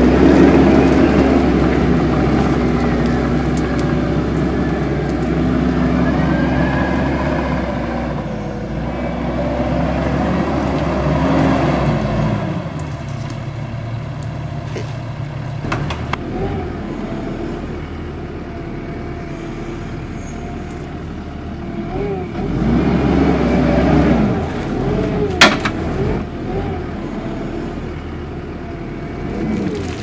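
Compact track loader's diesel engine running under hydraulic load as it works a tree shear. Its revs are higher for the first dozen seconds, drop, then rise and fall again near the end, with a single sharp snap about 25 seconds in.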